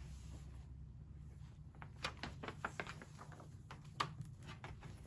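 Paper rustling and light clicks from handling a hardcover book and its fold-out map, with a quick cluster of rustles about two seconds in and one sharper tap about four seconds in, over a low steady hum.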